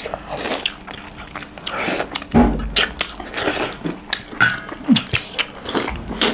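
Close-miked eating sounds of chicken curry and rice eaten by hand: chewing, lip smacking and wet mouth clicks, with a low thump about two and a half seconds in.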